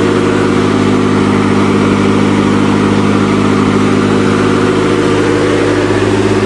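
The 3-liter V6 of a 1986 Nissan 4x4 pickup running steadily at a fast idle. The engine speed holds even, and the owner wonders whether the throttle is sticking.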